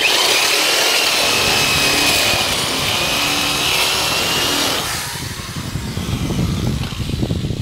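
Handheld rotary tool running at high speed, enlarging a hole in a metal headlight bracket. A steady high-pitched whine for about five seconds gives way to a lower, rougher grinding noise.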